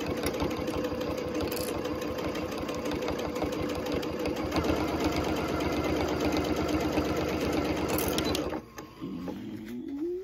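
Electronic sewing machine stitching steadily through layers of terry towel and fabric, running a little faster about halfway through, then stopping with a short rising whine near the end.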